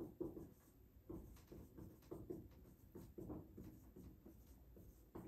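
Faint squeaking and scratching of a dry-erase marker on a whiteboard in short, irregular strokes as circles are drawn.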